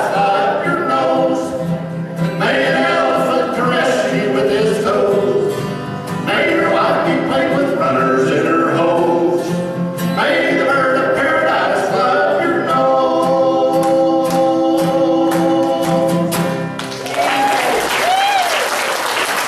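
Voices singing the last chorus of a song to guitar accompaniment, ending about seventeen seconds in, followed by applause from the audience.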